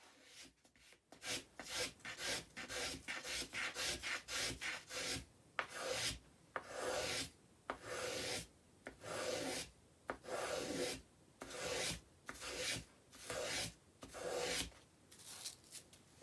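A hand tool shaving and carving a wooden guitar top brace in repeated strokes, about one a second, growing shorter and quicker near the end.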